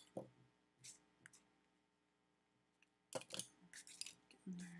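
Near silence broken by a few faint clicks, then a quick run of sharper taps a little past three seconds in: a colored pencil and the paper being handled.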